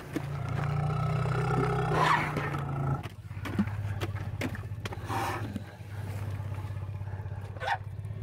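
Asian elephant's low rumble, close up. One long rumble lasts about three seconds, then a deeper, pulsing rumble follows and carries on.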